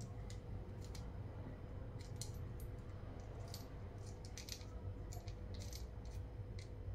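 Faint scattered small clicks and rustles of wire ends being twisted together by hand, over a steady low hum.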